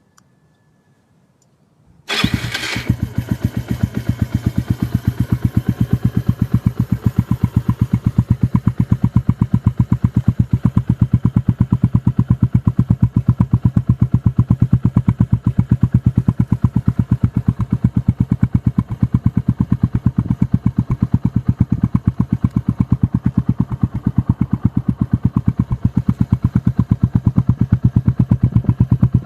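Lexmoto Adrenaline 125's single-cylinder engine starting about two seconds in, then idling steadily through its Lextech hexagonal exhaust with an even, rapid exhaust beat.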